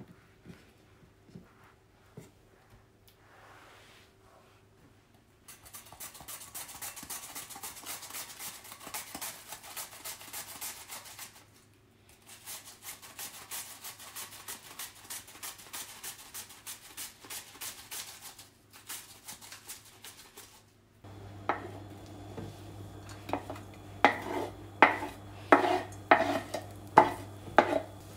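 Onion sliced on a handheld Kai mandoline slicer: two long runs of quick, even slicing strokes. Near the end an induction hob hums steadily and a few sharp, loud clacks come from the pot.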